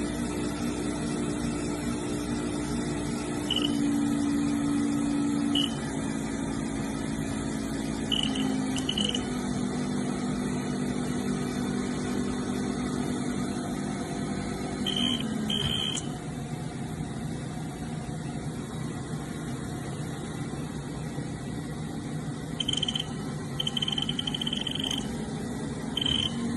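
Haas VF-0E vertical mill's 20 hp vector-drive spindle motor running unloaded with a steady hum whose pitch steps up and down several times and drops with a click about two thirds of the way through. The rough noise comes with the spindle speed hunting and a high load reading in fresh air, a sound the owner took for worn spindle bearings though the spindle felt good by hand, and which came before the vector drive failed.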